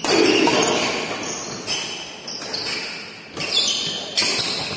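Badminton rally: a string of sharp racket strikes on the shuttlecock and footwork on the court floor, echoing in a large hall.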